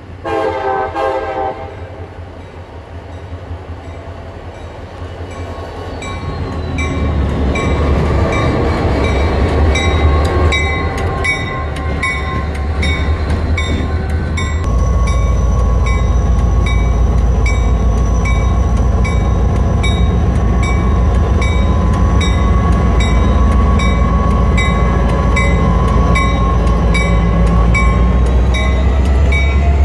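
CSX freight train's diesel locomotives approaching and passing close by: a deep engine rumble that grows loud about halfway in, with the wheels clicking over rail joints at a steady beat.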